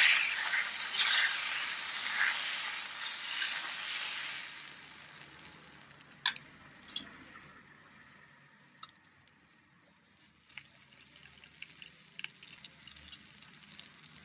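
Dosa batter of wheat flour and grated potato sizzling on a hot dosa pan as it is poured and spread with a ladle. The sizzle is loud at first and dies down after about five seconds to a faint crackle with a few light clicks.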